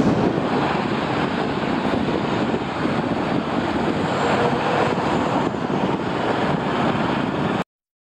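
Heavy articulated trucks driving through a road junction: a steady mix of diesel engine noise and tyre noise. It cuts off abruptly shortly before the end.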